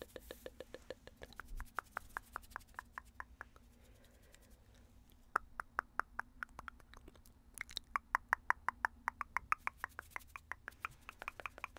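Rapid ASMR tongue clicking, about six clicks a second, in runs with a short pause around the middle; the clicks ring at a pitch that shifts from lower to higher from run to run.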